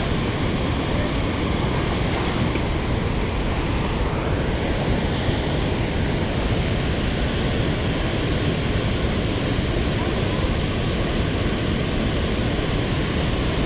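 Loud, steady rushing of heavy water releasing through a dam's gates into the river below.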